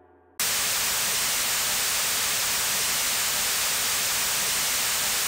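Television static: a steady, loud white-noise hiss that cuts in suddenly about half a second in, as the last of a gong's ring dies away.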